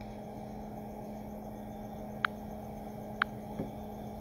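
Steady low electrical-sounding hum, with two short sharp clicks about a second apart just past the middle.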